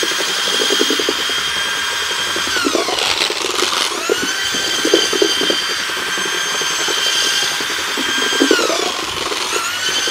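Handheld electric paddle mixer churning lime mortar in a bucket. The motor's high whine slows about three seconds in and again near the end, winding back up each time, over the rough churn of the mortar.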